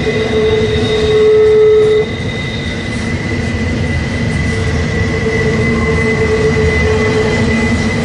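Double-stack intermodal freight train rolling past: a steady rumble of wheels and cars with a thin, high squeal from the wheels on the rail. The squeal is strongest for the first two seconds, cuts off sharply, and comes back more faintly later.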